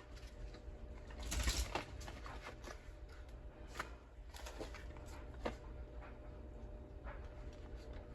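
Ammunition boxes being handled: a rustle of cardboard and packaging about a second and a half in, then a few light knocks and clicks as a box is picked up and set down.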